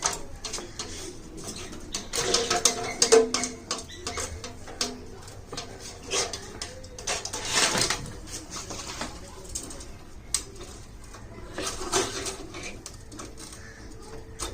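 Clicks, knocks and rustles of parts being handled during refrigerator freezer replacement work, with a pigeon cooing in the background.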